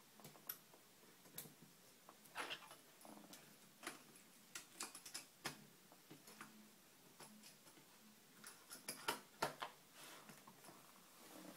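Faint, irregular clicks and taps on a laptop's keys and trackpad, some in quick little clusters.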